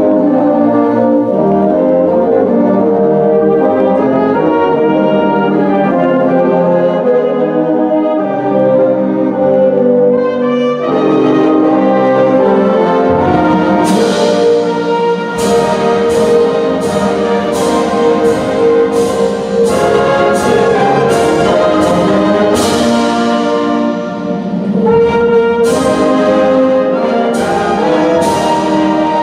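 Brass-led band or orchestral music playing sustained chords. About halfway through, regular percussion hits join in.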